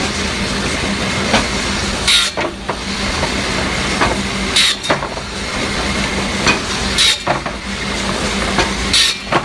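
Motor-driven circular saw for cutting bamboo running with a steady hum and whir. Four short, sharp rasps, about two and a half seconds apart, come as the blade cuts through the bamboo poles.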